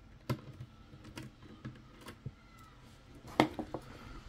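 Scattered small clicks and taps of a screwdriver and the metal-and-plastic external antenna mount being worked loose from a mini PC chassis, with one sharper knock and a few quick clicks about three and a half seconds in.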